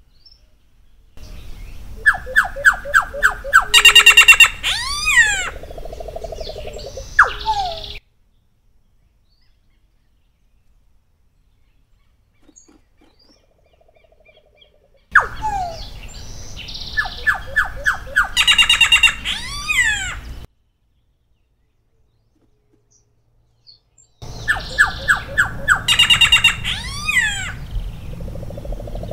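Solitary black cacique (Cacicus solitarius) singing three times, each song a run of short repeated notes, then a loud, high, rapid trill, then several swooping whistles and a low note, with several seconds of silence between songs.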